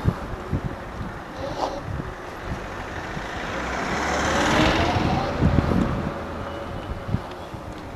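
Riding noise from a Wolf X Pro electric scooter on a city street: wind rushing over the microphone, tyre and road noise, and short knocks as the scooter goes over bumps. An oncoming car swells past and fades about halfway through.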